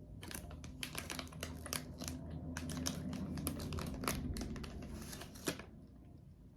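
A plastic snack bag of strawberry marshmallows crinkling and crackling as it is handled and opened, in a quick run of irregular crackles that die down about five and a half seconds in.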